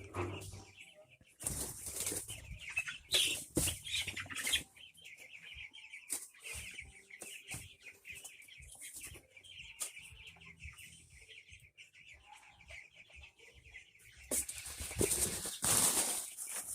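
Birds in a pen flapping their wings in repeated short bursts, the loudest flurry near the end, over a steady high-pitched chirring.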